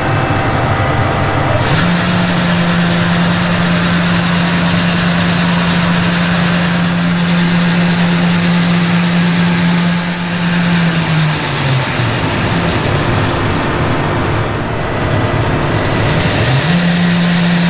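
John Deere S790 combine running with its grain tank auger drive turning: a loud, steady machine drone with a strong hum. About eleven seconds in the hum slides down in pitch, and it climbs back up about five seconds later.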